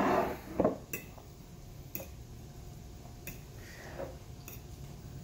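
Metal fork clicking and scraping against a ceramic plate as food is scooped up: a few light, sharp ticks about a second apart, after a brief louder noise at the very start.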